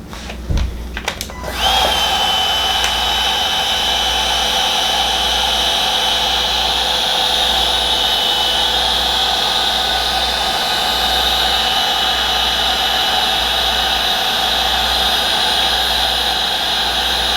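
Electric heat gun switched on about a second and a half in and running steadily with a high whine, shrinking heat shrink tubing over crimped wire joints.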